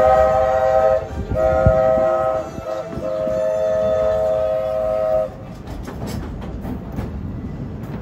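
Walt Disney World Railroad steam locomotive's whistle blowing in three blasts: one that breaks off about a second in, a short one, then a longer one of about two seconds. After the whistle stops, the rumble of the moving train with scattered rail clicks.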